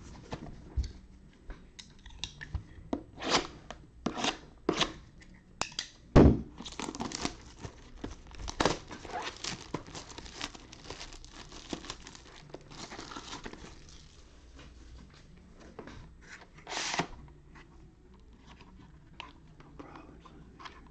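A sealed trading-card hobby box being unwrapped: plastic wrapping torn and crinkled in a series of irregular short rips, the loudest about six seconds in.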